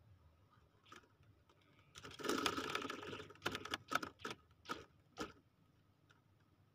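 Nylon fishing handline being pulled and handled: a dense scraping burst of about a second, then about six short separate rasps.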